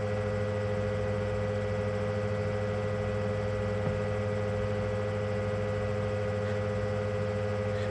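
A steady machine hum holding several fixed tones, without change.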